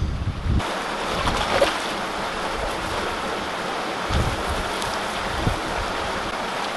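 Steady rushing hiss of wind and running creek water. A low wind rumble on the microphone drops away under a second in, and there are a couple of faint low knocks later on.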